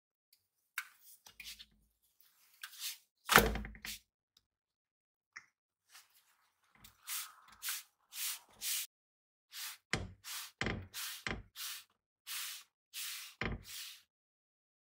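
A folded cloth pressing and dabbing a pita bread as it cooks in a non-stick frying pan: a string of short rubbing swishes with a few soft knocks, and a louder thump about three seconds in.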